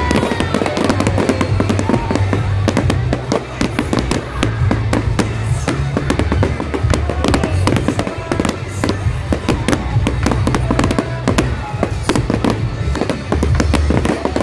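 Fireworks going off in rapid, dense bangs and crackles, over music with a heavy pulsing bass.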